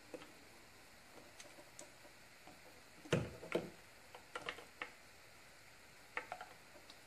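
Scattered light clicks and handling noises of a metal hose clamp being worked into position on a rubber catch can hose, with two louder knocks about half a second apart a little after three seconds in.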